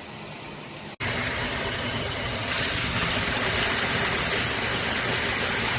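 Water spraying steadily from a shower head, a dense rushing hiss. It cuts out for an instant about a second in, comes back louder, and grows louder and hissier about halfway through.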